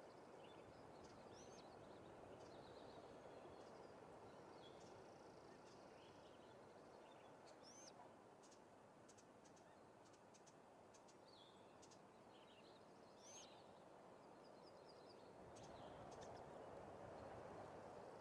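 Faint high chirps and short rising squeaks, scattered throughout and bird-like, over a steady low background hiss.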